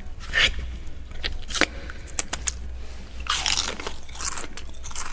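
Biting into and chewing crisp, crunchy food: a series of sharp crunches, with the widest and loudest ones a little past the middle.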